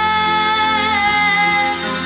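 A female singer holds one long sung note over the song's accompaniment, releasing it near the end.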